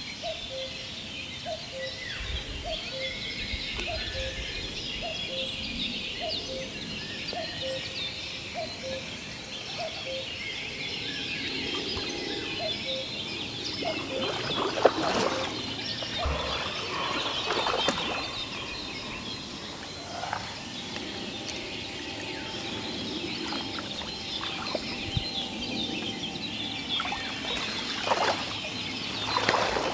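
A hooked carp being played and netted at the bank, splashing loudly several times. The last splashes come near the end, as the net goes in. Birds sing throughout, and a short low call repeats about every 0.7 s for the first dozen seconds.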